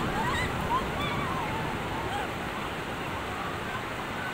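Ocean surf washing in a steady rush, with faint scattered voices of people in the distance over it.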